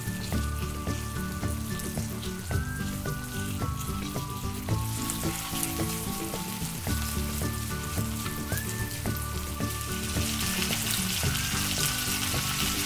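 Pieces of boiled corn on the cob sizzling as they fry in melted butter, mayonnaise and syrup in a frying pan; the sizzle grows louder about five seconds in and is strongest near the end. Light background music plays throughout.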